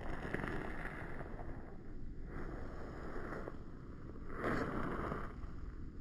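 Wind buffeting the phone's microphone: a rumbling rush that swells and drops in gusts about a second long.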